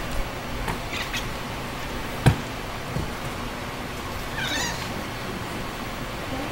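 A domestic cat gives one short, high, wavering meow a little past the middle. Before it comes a single sharp thump, the loudest sound, with a few lighter knocks around it.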